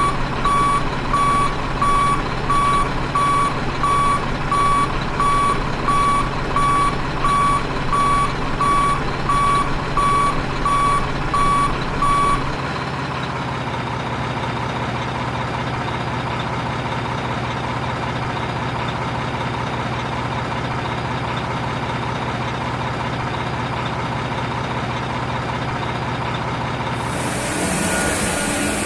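Toy excavator's electronic warning beeps, about one and a half a second, over the steady hum of the running toy. The beeping stops about twelve seconds in and the hum carries on.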